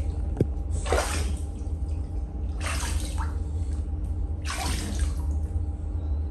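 Water swishing and splashing in an inflatable paddling pool as a child moves in it, a short swish about every two seconds over a steady low rumble.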